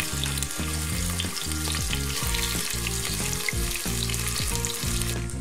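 Sliced onions sizzling and crackling steadily as they fry in hot oil, with background music underneath.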